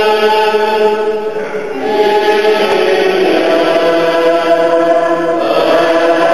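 A congregation singing a slow hymn together in long held notes, moving to a new note about two seconds in after a short breath, and again near the end.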